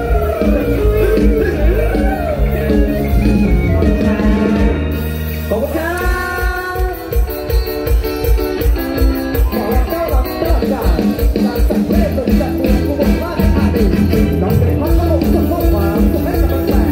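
Live Isan mor lam band music played loud through a concert sound system, with singers over electric backing and a bass beat. About five seconds in, a rising swoop leads into a steady, driving bass beat.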